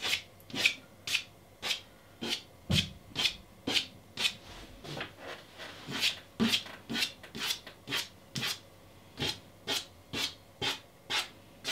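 Soft pastel stick scratching short upward strokes across pastel mat paper, about two strokes a second, as grass lines are drawn.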